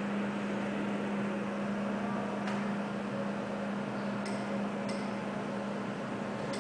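Steady mechanical hum with a low tone and a hiss, with a few faint clicks.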